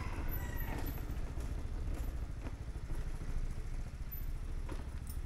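Scooter engine running steadily at low revs, with a few light clicks over it.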